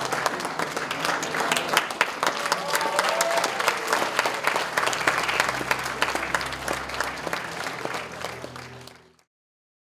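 Audience applauding, fading out about nine seconds in.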